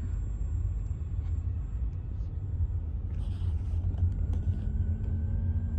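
Steady low rumble of a car's engine and tyres heard from inside the cabin as it drives slowly, with a faint thin whine coming in about four seconds in.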